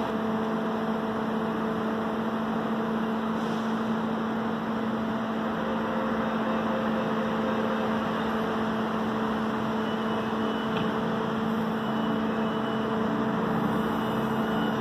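CPTM Series 9000 electric train standing at the platform, its onboard equipment giving a steady hum over a constant rush of fans. Short high beeps come in near the end as the doors close.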